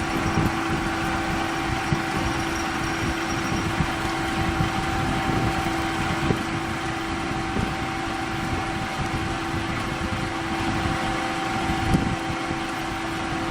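CNC deep hole drilling machine running: a steady mechanical hum with a constant whine over a low rumble, and a sharper knock about twelve seconds in.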